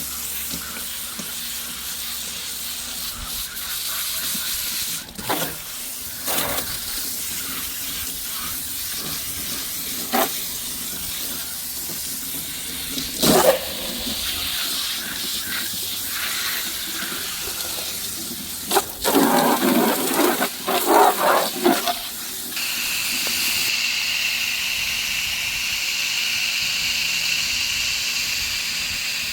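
Water from a hose spraying onto a heat pump's condenser coil to wet it down for cleaning: a steady hiss of spray with a few knocks and a louder splashing stretch past the middle. About three-quarters of the way through the spray changes to a smoother, brighter hiss.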